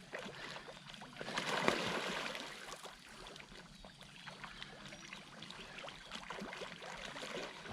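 Water splashing and sloshing as fish feed on pellets at the surface, loudest about one to three seconds in and fainter after.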